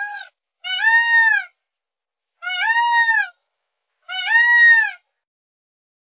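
Indian peafowl (peacock) calling: the end of one call at the start, then three loud, drawn-out calls about 1.7 s apart, each rising and then falling in pitch.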